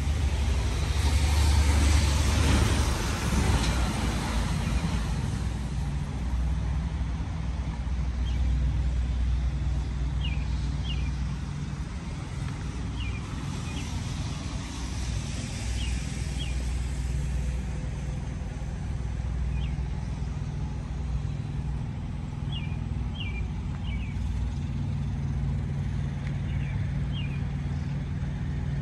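Semi truck's diesel engine running steadily, with a loud hiss about a second in that lasts a few seconds. Short high chirps, often in pairs, come every few seconds.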